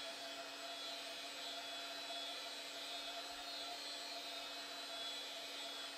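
Heat gun running steadily: a fan whir with a constant low hum.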